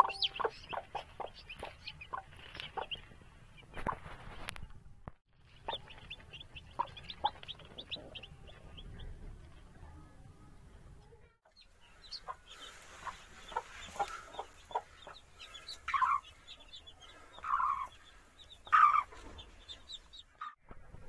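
Newly hatched chicks peeping over and over, short high chirps, while the broody hen they are nestled under gives a few louder, lower clucks near the end.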